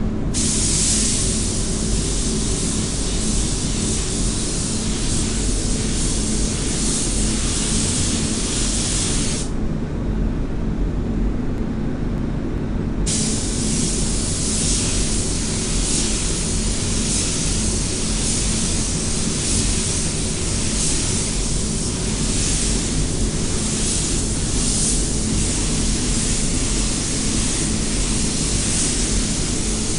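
Spray gun hissing as it sprays clear lacquer onto a car's front wing, over a steady low hum. The hiss stops about nine seconds in and starts again some three seconds later.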